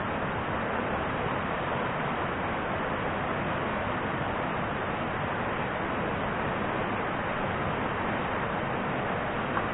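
River water rushing steadily, an even unbroken noise, with a faint click just before the end.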